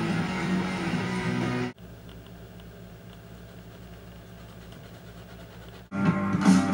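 Background guitar music that cuts off abruptly about two seconds in, leaving a quieter steady low hum for about four seconds, before music starts again near the end.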